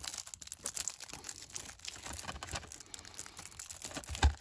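Plastic shrink-wrap crinkling and crackling with many small irregular clicks as it is peeled and torn off a Blu-ray case. A single soft thump comes near the end.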